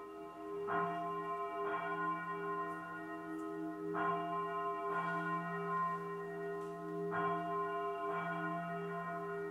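A bell tolling: strokes come in pairs about a second apart, a pair roughly every three seconds, each ringing on over the next, and the sound cuts off abruptly at the end.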